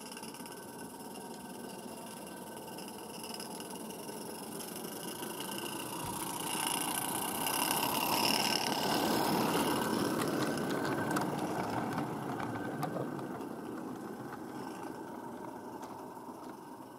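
A Regner "Konrad" 0-4-0T live-steam garden-railway locomotive running past on the track, its steam and running gear growing louder to a peak about eight to ten seconds in and then fading away, with a few small clicks as it passes.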